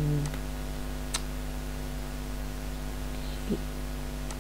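Steady electrical mains hum with a light hiss, broken by two sharp computer mouse clicks: one about a second in and one near the end.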